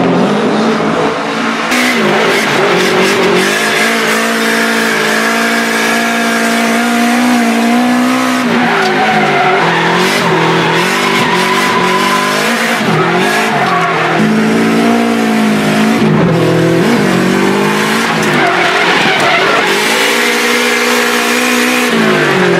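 Nissan S13 drift car's turbocharged SR20DET four-cylinder revving hard, its pitch climbing and dropping again and again through the drifts, over squealing, skidding tyres. After the first couple of seconds it is heard from inside the car.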